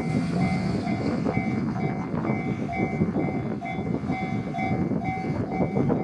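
Japanese level-crossing warning bell ringing about twice a second over the rumble and wheel noise of a two-car Kiha 185 series diesel express train passing at speed.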